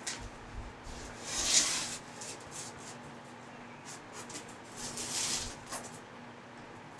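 Rustling and rubbing as someone works in a car's footwell under peeled-back carpet, unplugging the oxygen sensor wire to push it through the floor. Two longer swishes come about a second and a half in and about five seconds in, over a faint steady hum.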